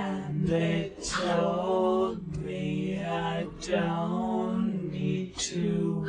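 Voices singing long, wordless held notes together, in four or five phrases with short breaks between them.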